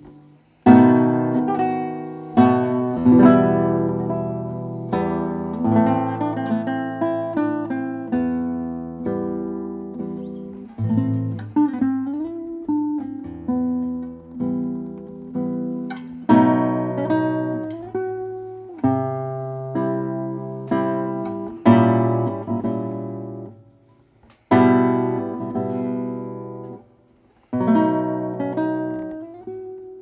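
1913 Hermann Hauser I classical guitar played solo, fingerstyle: a classical piece of plucked chords and melody notes, each ringing out and fading. There are two brief breaks in the last third.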